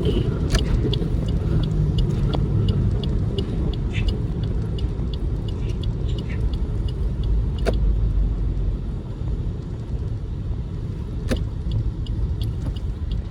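Low rumble of a car heard from inside the cabin while driving. Over it a turn-signal indicator ticks about three times a second, stops around the middle, and starts again near the end. Two single knocks are heard.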